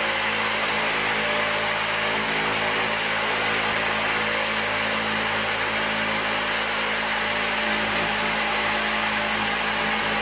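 Corded handheld power saw running steadily as its blade cuts through the wall of a shower surround, a continuous motor sound with the cutting noise over it.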